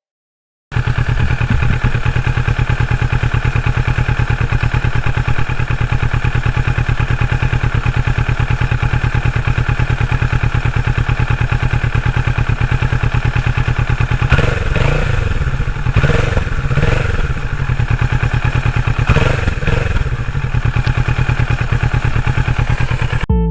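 Kawasaki Ninja 650's parallel-twin engine idling steadily, then revved in a run of quick throttle blips past the halfway point and a couple more a few seconds later.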